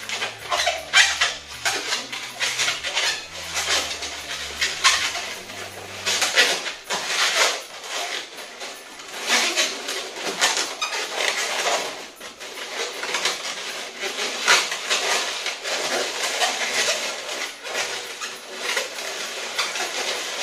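Long latex modelling balloon being twisted and folded by hand into a bow: a quick, irregular run of squeaks and rubbing from the latex.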